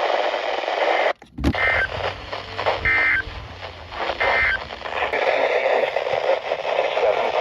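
Weather radio sending the Emergency Alert System end-of-message signal: three short bursts of high digital data tones, about 1.3 seconds apart, marking the end of the tornado warning broadcast. Radio hiss surrounds them, broken by a brief dropout and click just before the first burst.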